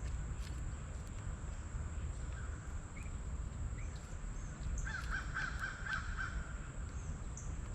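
Wild birds calling at a feeder: a few short chirps, then about five seconds in a quick run of harsh, repeated calls lasting a second and a half.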